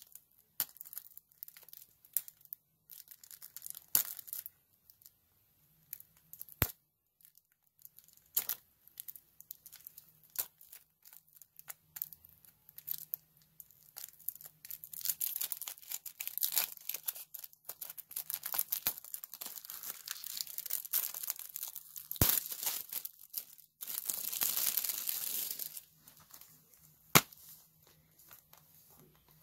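Plastic shrink wrap being picked at and peeled off a plastic Blu-ray case: irregular crinkling and tearing, busier in the second half, with a longer steady rip about 24 seconds in. A sharp click near the end as the case snaps open.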